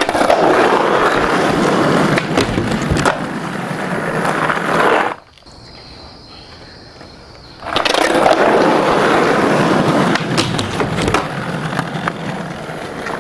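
Skateboard wheels rolling over hard ground, a steady gritty rumble with a few sharp clicks and knocks from the board. The rolling cuts out suddenly about five seconds in and comes back some two and a half seconds later.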